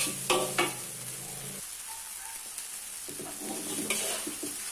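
Spatula scraping and turning rice-vermicelli stir-fry in a metal wok, down to the bottom of the pan, over a steady sizzle of frying. The scraping comes in short strokes, busiest at the start and again in the last second or two.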